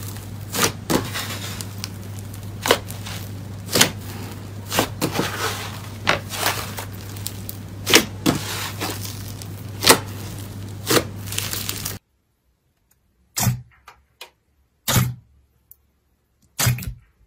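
Hands stretching and pressing thick black slime, giving sharp sticky pops about once a second over a steady low hum. About twelve seconds in the hum stops, and fingers pressing a soft slime in a bowl give a few separate pops, about one every one and a half seconds.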